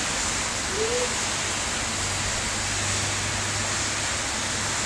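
Heavy rain pouring down in a cloudburst: a steady, dense hiss. A low steady hum joins about two seconds in.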